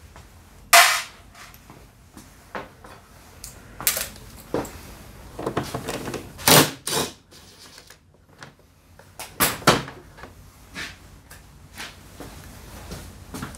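Plastic body panels of a Honda PCX 125 scooter knocking and clicking as they are handled and unclipped, a string of separate sharp clunks with short pauses between. The loudest come about a second in and around the middle.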